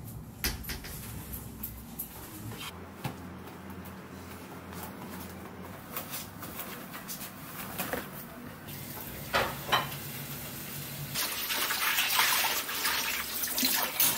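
A few light knocks and rustles, then, about eleven seconds in, a kitchen tap starts running into a stainless-steel sink with a steady rush of water.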